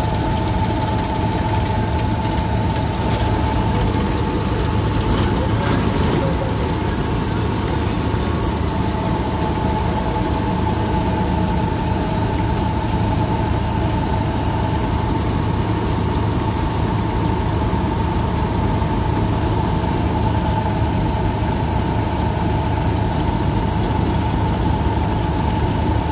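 Combine harvester running steadily while its unloading auger pours threshed wheat into a tractor trolley: a constant engine and machinery noise with a steady whine over it.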